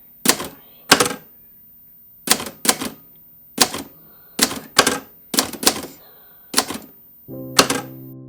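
Typewriter keys struck in irregular bursts, about a dozen sharp clacks with uneven gaps. Near the end a sustained musical chord comes in under the last keystrokes.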